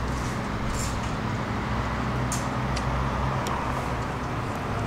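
Tram's steady low electrical hum and running noise, with a few faint light ticks.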